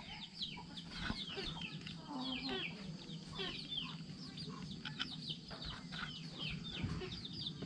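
Chickens clucking in the background, with many short, high, falling peeps spread throughout.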